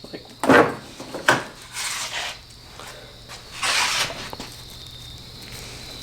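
Handling noise from a car wiring harness and its connectors being pulled about and inspected. There is a clunk about half a second in, a sharper knock shortly after, then scraping and a brief rustle.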